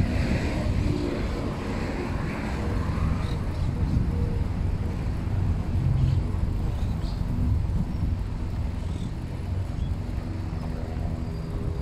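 City traffic heard from a moving bicycle, a steady low rumble, with a humming tone joining near the end.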